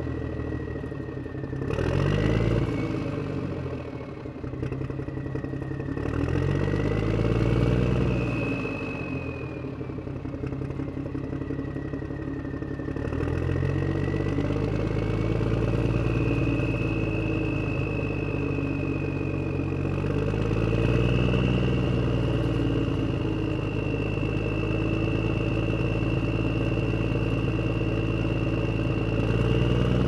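Huina RC wheel loader running and pushing dirt, its motor whine rising and falling in pitch again and again as it speeds up and slows.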